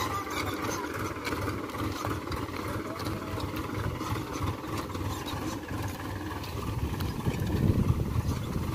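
Powertrac Euro 50 tractor's diesel engine running steadily under load while it pulls a tine cultivator through the field.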